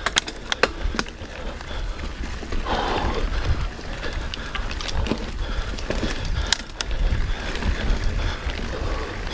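Silverback mountain bike rolling over rough ground: a run of irregular clicks, knocks and rattles from the bike over a constant tyre-and-trail noise, with wind rumbling on the helmet camera's microphone.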